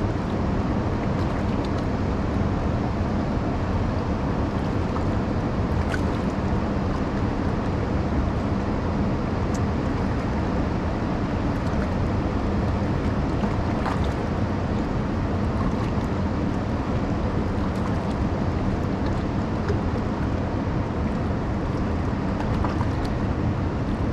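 Steady rushing noise of water pouring from the dam's spillway outlet into the river, with wind on the microphone.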